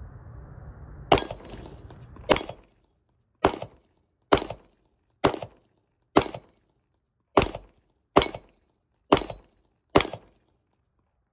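Springfield Armory XD-M Elite Compact 10mm pistol fired ten times at a steady pace of about one shot a second, each a sharp, loud crack.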